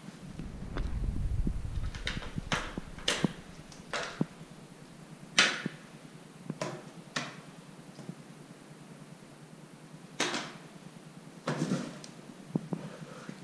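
Cardboard boxes knocked and scuffed by a playing cat: scattered irregular taps and thumps, with a louder knock about five seconds in, and a low rumbling scrape near the start.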